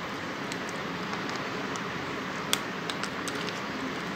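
Steady hiss with a few faint, sparse clicks, the sharpest about two and a half seconds in.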